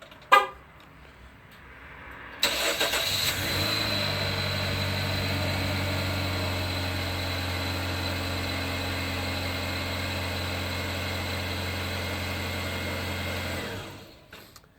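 2013 Dodge Dart's horn chirps once, then its four-cylinder engine starts by remote start about two seconds in and idles steadily. About a second before the end the engine shuts off by itself: the remote start cutting out because the check engine light is on, here set by a faulty oil switch.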